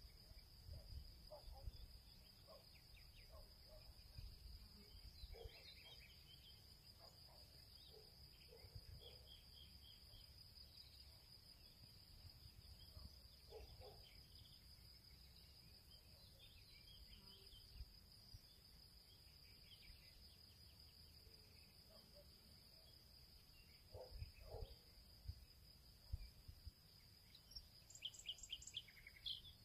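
Near-silent background: a steady faint high-pitched trill, with scattered faint chirps and light ticks.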